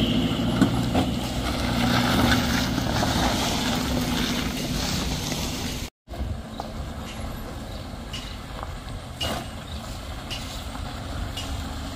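Heavy truck engine running with a steady low drone. About halfway through the sound cuts out for an instant and returns quieter, with a few short knocks.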